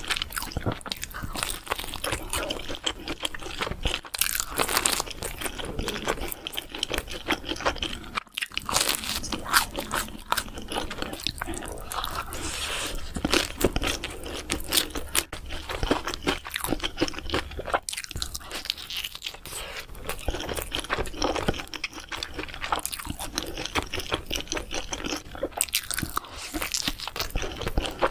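Close-miked eating of crunchy food: a steady run of crisp bites and chewing, with brief pauses about 8 and 18 seconds in.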